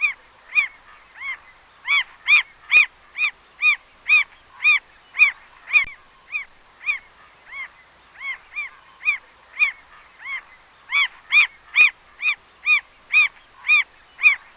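Mockingbird calling: a long series of short, arched notes repeated a little over twice a second, softer at first and again in the middle, louder in between and toward the end.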